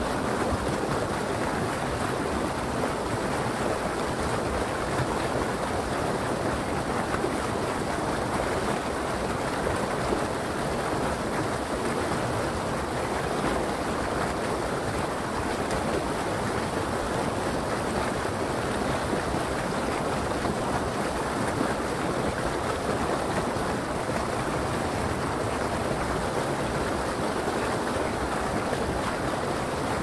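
Steady rush of a river's flowing water, an even unbroken wash of sound.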